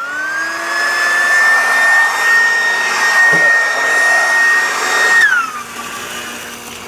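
Oreck bagged vacuum cleaner's motor switched on, whining up to speed and running steadily for about five seconds, then switched off and spinning down.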